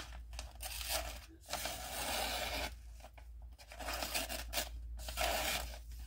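Damned Designs Basilisk folding knife's 14C28N blade slicing through thin catalog paper in a series of long, hissing strokes with short pauses between cuts. The clean, easy cuts show a sharp out-of-the-box edge.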